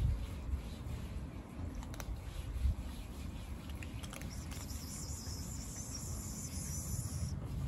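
A high, steady insect buzz starts about halfway through and cuts off suddenly near the end, over a low outdoor rumble.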